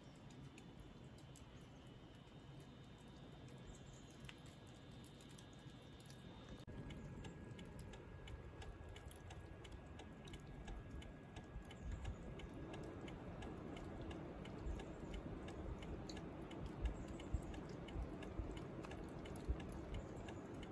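Meltwater dripping from melting icicles: a quiet, irregular patter of small drips, growing busier and a little louder about a third of the way in.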